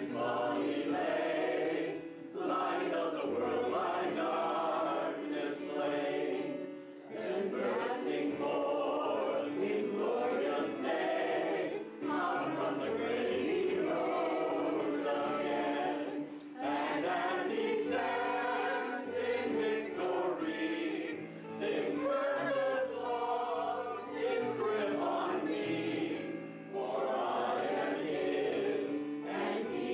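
A group of voices singing a hymn together over an instrumental accompaniment that holds steady notes and a moving bass line, in phrases of a few seconds with brief breaks between them.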